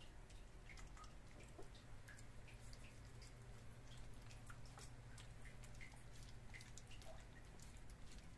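Puppies eating rice from a plastic basin: faint, irregular wet clicks of chewing and lapping, over a low steady hum.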